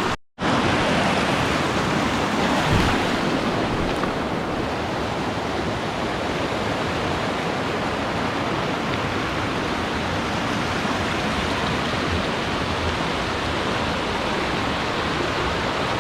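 Fast-flowing creek rushing steadily, running high and fast with snowmelt. There is a brief dropout just at the start.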